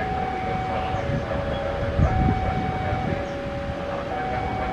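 Railway level-crossing warning alarm sounding two alternating tones, switching about once a second. Under it runs the low rumble of a KAI diesel locomotive drawing a passenger train slowly toward the crossing.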